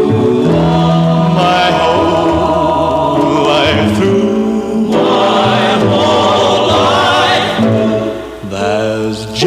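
A 78 rpm record playing a slow vocal ballad with a choir singing sustained backing harmonies. The disc is being played wet with clean water to quiet its surface crackle.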